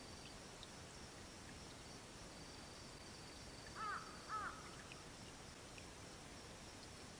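A bird gives two short hoarse calls about half a second apart, over a faint steady high trill of night insects.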